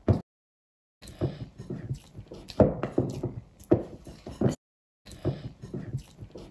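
Metal spoon stirring thick cornflour-and-water slime (oobleck) in a bowl, with irregular knocks and scrapes of the spoon against the bowl. The sound cuts to dead silence twice, each time for under a second.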